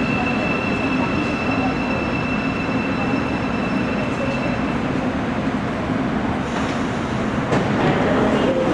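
Korean subway train at a station platform, its running rumble steady throughout. A high thin whine sits on top and fades out about halfway through.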